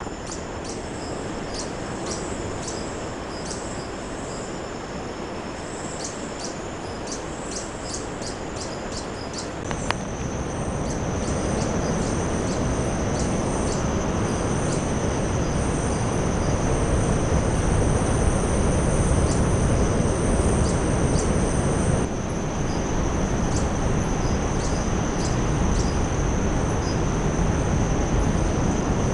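Forest insects: rapid high chirping, then from about ten seconds in a steady high-pitched whine, over a constant rushing noise. A click comes about ten seconds in, and the rushing grows louder from there.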